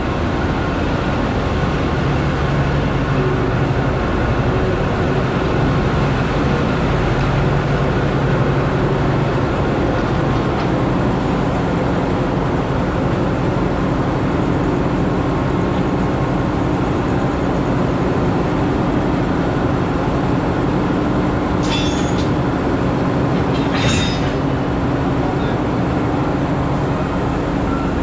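Diesel locomotives idling at a station platform: a loud, steady low engine drone. Two short sharp noises come near the end.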